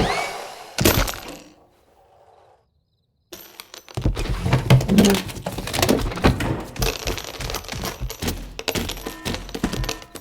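Film sound effects: a crash with a brief ringing tone at the start and a second hit just under a second in. After about a second of silence comes a long, dense run of clattering and crashing.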